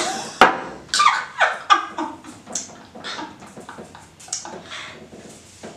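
Two women laughing and squealing, with short gasping cries, as one downs a straight shot of overproof rum and reacts to the burn. A sharp knock about half a second in.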